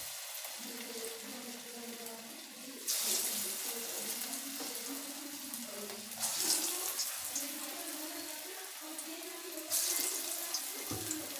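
Bottle gourd kofta balls of gram-flour batter sizzling as they deep-fry in hot oil in a kadhai. The sizzle gets suddenly louder about three times, each time another kofta is dropped into the oil.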